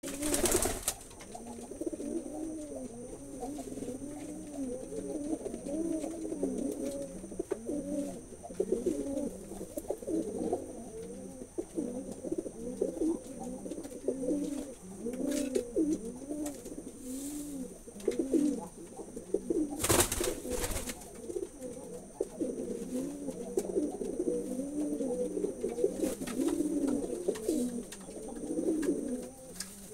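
Domestic pigeons cooing without pause, several coos overlapping, each rising and falling in pitch. There is a brief knock about twenty seconds in.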